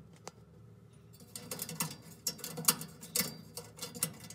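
Light, irregular metallic clicks and taps as fingers work a loosened torx screw out of the oven igniter's metal mounting bracket. One click comes just after the start, and a busy run of clicks begins about a second and a half in.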